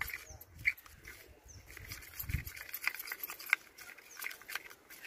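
A steel spoon clicking and scraping against a small steel bowl as a thick turmeric, curd and gram-flour paste is stirred, with a short low thud a little past two seconds in.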